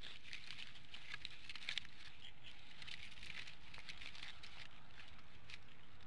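Irregular crackling and snapping of dry sticks and twigs as two bald eagles shift and work the nest material, over a steady low background noise. A small cluster of louder snaps comes about one to two seconds in.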